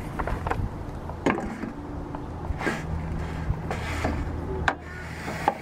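A pine board handled on a metal table saw top: it is set down and shifted into place, giving several separate knocks and scrapes over a low steady hum.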